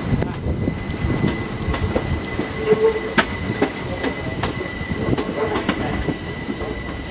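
A train moving past on the rails at close range, its wheels knocking over the rail joints, with a short wheel squeal about three seconds in.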